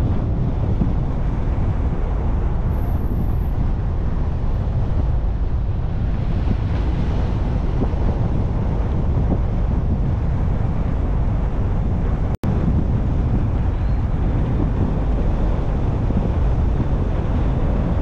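Steady low rumble of wind and road noise from a moving car. The sound breaks off for an instant about twelve seconds in.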